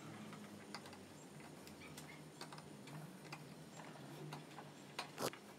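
Narrow wood chisel worked by hand around the rim of a drilled hole in a wooden block, scraping and paring a chamfer as it is turned: faint, irregular small clicks and scrapes, with a louder scrape about five seconds in.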